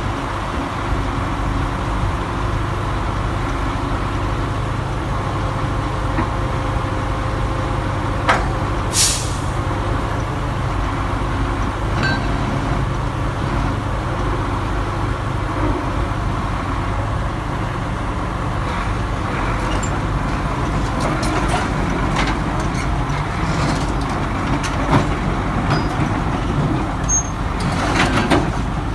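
Heavy diesel engine of a Sumitomo LS2800DJ excavator running steadily. A short hiss of released air comes about nine seconds in, and a series of knocks and clanks comes near the end.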